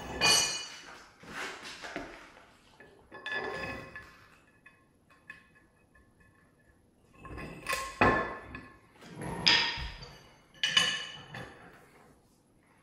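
Metal tools and parts clanking against each other: about six separate knocks, each with a short metallic ring.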